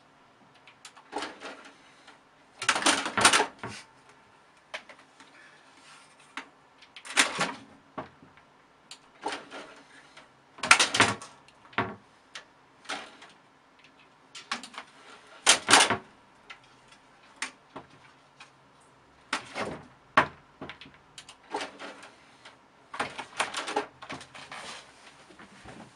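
A cat scrabbling and clawing at the side of a plastic computer tower case: irregular bursts of scratching and knocking a few seconds apart.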